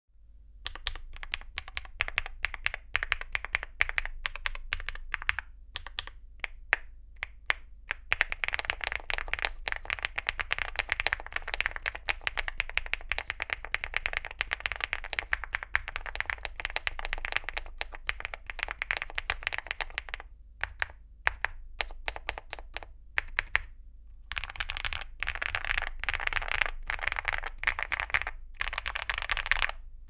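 Typing on a Leobog Hi75 mechanical keyboard with a PC plate and full foam, fitted with MMD Princess V4 linear switches (45 g) and XDA-profile PBT keycaps. It starts with separate keystrokes and goes into fast continuous typing about eight seconds in. Around twenty seconds in there are a few scattered presses, then fast typing again.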